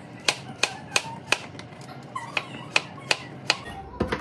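Kitchen knife chopping on a cutting board in quick, regular strokes, about three a second, with a short pause in the middle.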